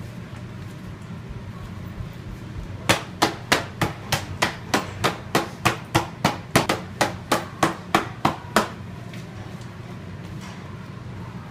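Leather pocket of a new Wilson A2000 1785 baseball glove being struck hard about twenty times, roughly three sharp smacks a second, starting about three seconds in and stopping a few seconds before the end: a new glove being beaten in to break it in.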